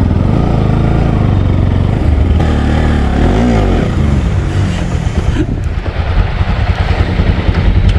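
Motorcycle engine pulling away and accelerating, its note rising and falling about three seconds in, with wind rumbling on the microphone as the bike gets up to speed.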